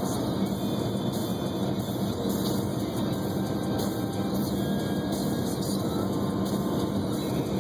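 Steady engine and tyre noise heard inside a moving car's cabin, on a road with snow and slush.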